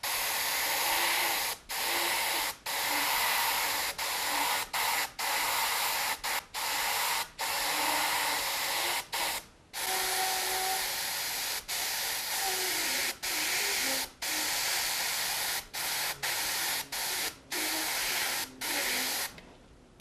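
Siphon-feed airbrush with a bottom paint jar spraying acrylic paint close to a stencil. Its hiss of air and paint is broken by brief stops about once a second as the trigger is released and pressed again.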